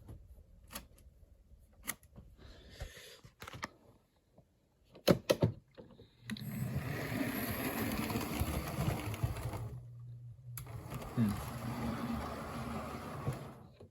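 Hornby model steam locomotive running on its track and over the points: a few scattered clicks in the first half, then a steady whirring motor hum with wheel noise from about six seconds in until just before the end.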